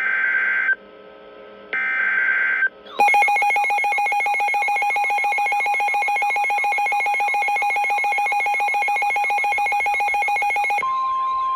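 Emergency Alert System SAME header: two short bursts of screechy digital data tones. About three seconds in, a loud, rapidly pulsing electronic alert tone starts. Near the end it switches to a steady single tone just above 1 kHz, the NOAA Weather Radio 1050 Hz warning alarm, heralding a severe thunderstorm warning.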